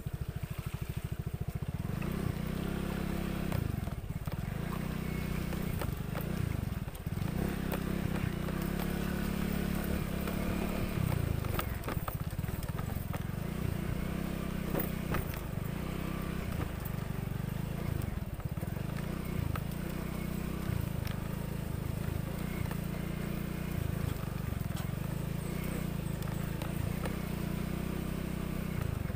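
Suzuki Skydrive scooter engine running at low speed, its note rising and falling over and over as the throttle is opened and eased on a rough, muddy dirt track.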